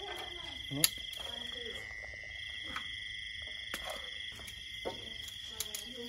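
Night insects, crickets, trilling steadily at two high pitches, one of them finely pulsing. Scattered sharp clicks of a spoon against a metal bowl of food, the loudest a single clack about a second in.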